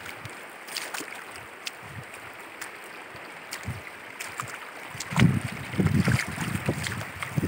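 Shallow river water running over pebbles, with small splashes from bare feet wading through it. From about five seconds in, wind buffets the microphone in loud rumbling gusts.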